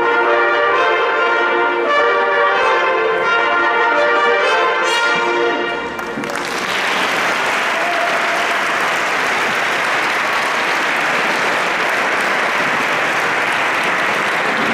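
Brass ensemble of trumpets and other brass playing the closing bars of a piece, which ends sharply about six seconds in. Audience applause follows.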